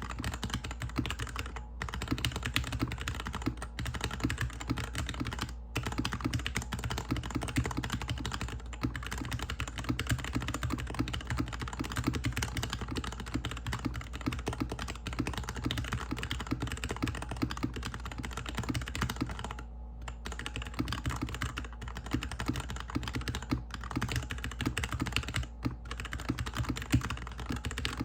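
Fast typing on a GK61X mechanical keyboard with stock linear Cherry MX Hyperglide Black switches, a stainless steel plate, plastic case and DSA keycaps, set straight on the desk: a dense, continuous run of keystroke clacks with a few brief pauses. The owner describes the switches as still scratchy after months of use.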